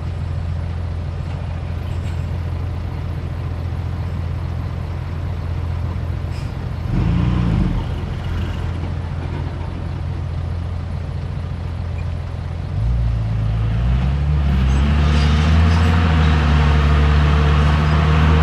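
Heavy diesel engine of earthmoving equipment running steadily at a low speed, with a short burst of noise about seven seconds in. Near the end the engine revs up and runs louder.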